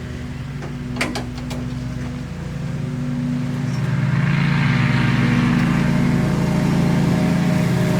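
A motor or engine running steadily, getting louder and rougher about halfway through, with a few sharp clicks about a second in.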